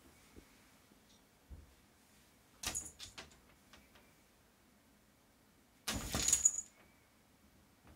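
A cat leaping up against wooden wardrobe doors at a dangling wand toy, hitting the doors and toy with a jangling rattle. A short clatter comes about two and a half seconds in, and a louder, longer jangle with a faint ringing note comes about six seconds in as the cat jumps.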